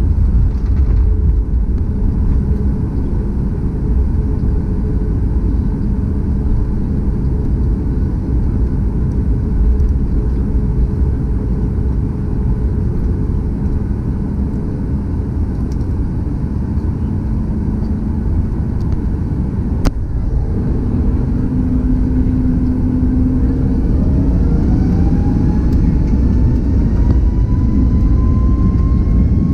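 Boeing 737 MAX's CFM LEAP-1B turbofan engines heard from inside the cabin as a steady low rumble while the jet taxis onto the runway, with a short knock about two-thirds of the way in. Near the end the engines begin spooling up for takeoff, a rising whine climbing in pitch.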